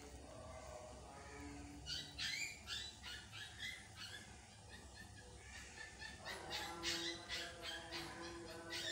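Birds chirping in quick repeated calls, starting about two seconds in.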